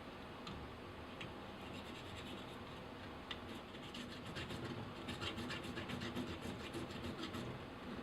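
Hand saw cutting through a PVC pipe: a run of rasping back-and-forth strokes that get quicker and louder about halfway through.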